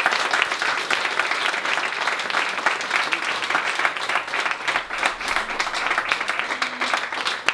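A small crowd applauding, a steady patter of many hands clapping.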